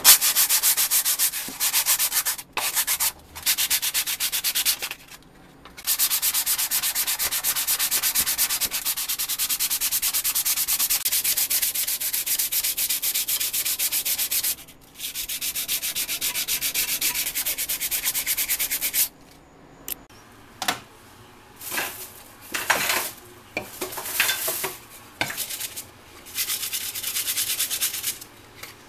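Sanding on a rusted pressed-steel toy part: a steady, even rasp with a few short pauses, which stops about two-thirds of the way through. After it come scattered short swishes and scrapes of the part being scrubbed in a soapy sink.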